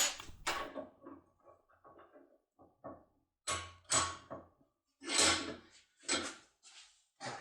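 Lock cylinder and locksmith's opening tool being handled: irregular clicks and clacks, faint small ticks at first, then about half a dozen louder clacks in the second half.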